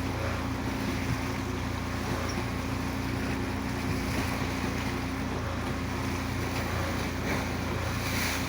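Motorboat engine running at a steady pitch, with a steady rush of wind and water.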